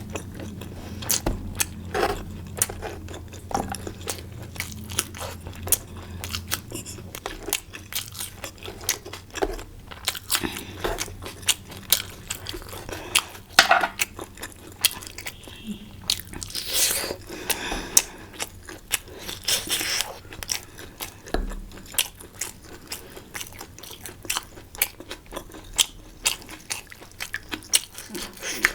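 Close-miked eating: chewing and biting food, with many short clicks and a few longer noisy sounds about halfway through.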